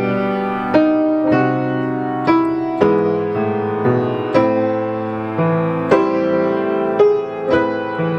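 Young Chang grand piano played at a slow, even pace: a melody over chords, a new note or chord struck about every half second to a second, each ringing on as it fades.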